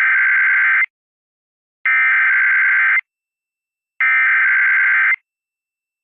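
Emergency Alert System SAME header: three identical bursts of warbling digital data tones, each about a second long with about a second's gap between them. This is the coded header that opens an EAS Tornado Warning (TOR) broadcast.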